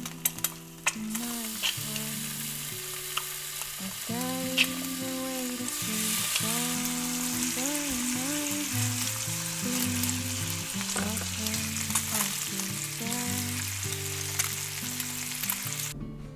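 Egg and bacon strips frying in a pan: a steady sizzle with scattered sharp crackles, which stops near the end.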